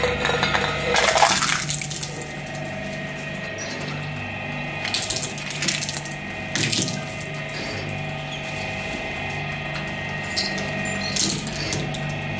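Meat grinder running with a steady hum, with short bursts of crunching as cookies are ground: about a second in, twice around the middle, and near the end.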